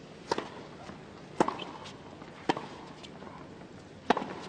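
Tennis rally: the ball struck back and forth by rackets, four sharp pocks about a second apart.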